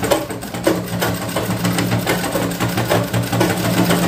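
Domestic straight-stitch sewing machine running and stitching cloth, with a repeated knocking 'tak tak' noise over its steady hum. The owner says this knock typically comes on after a needle suddenly breaks.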